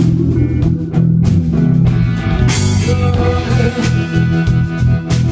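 Live rock band playing: electric guitar and bass over a drum kit, with a cymbal crash about two and a half seconds in.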